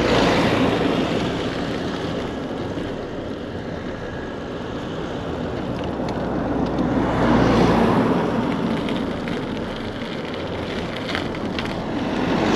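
Wind rushing over the microphone and tyre noise from a bicycle on the move, with a deep rumble. The noise swells about seven seconds in.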